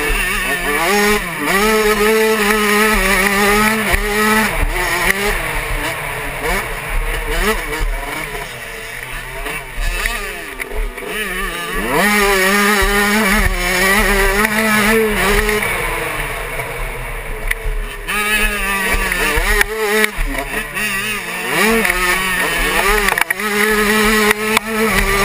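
85cc two-stroke motocross bike engine, heard from the rider's helmet, revving hard and falling back over and over as the rider shifts gears and rolls off for turns, with wind rushing over the helmet.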